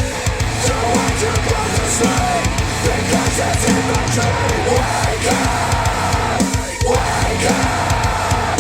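Heavy rock music with drums and guitars, played through Wharfedale Denton 80th bookshelf speakers driven by a NAD C 338 integrated amplifier.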